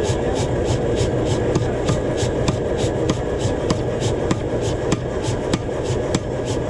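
Hammer blows on hot knife steel, a steady run of sharp metallic strikes about three to four a second, over a continuous low rumble.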